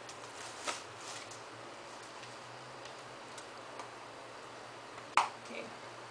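Pages of a glossy magazine being flipped by hand: a few soft rustles and light clicks, with one sharper click about five seconds in.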